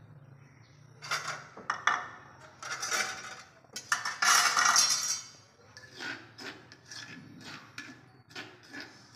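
Clatter of a metal spoon and tongs scraping and clinking against plates and a stone mortar, in irregular strokes that are loudest about four to five seconds in, then a run of short light clicks.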